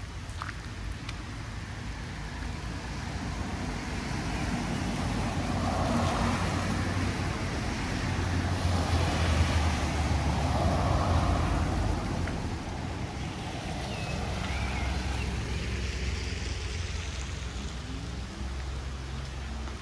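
A motor vehicle driving past on a wet road: engine rumble and tyre hiss swell to a peak about ten seconds in, then fade.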